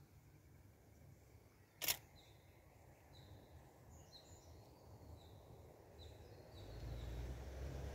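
A single camera shutter click about two seconds in, over faint short bird chirps repeating every second or so. A low rumble builds near the end.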